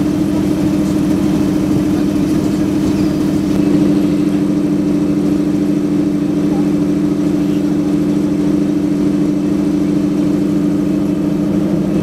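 SM42 diesel shunting locomotive's engine idling with a steady, unbroken low hum.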